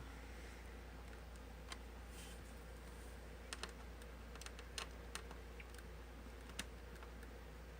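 Scattered light clicks of a Phillips screwdriver working small screws out of a laptop's screen assembly, over a low steady hum.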